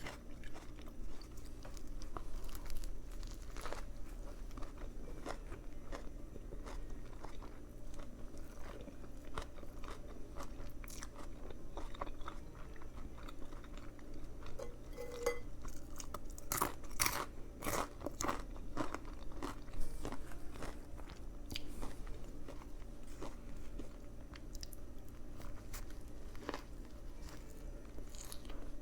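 A person chewing and biting into a Subway veggie patty footlong sandwich, a steady run of crunchy clicks with a denser burst of loud crunches a little past halfway.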